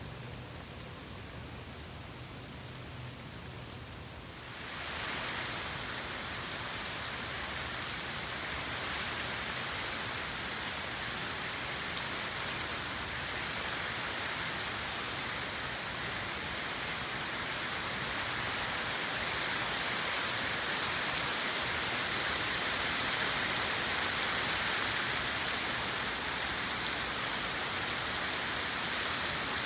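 Steady rain falling, an even hiss of drops. About four seconds in it turns suddenly louder and heavier, and it grows heavier again past the middle.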